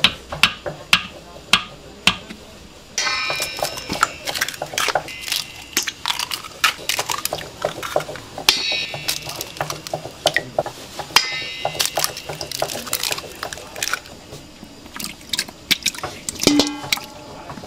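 Repeated sharp clinks and scraping of utensils against stainless steel bowls while dough is mixed.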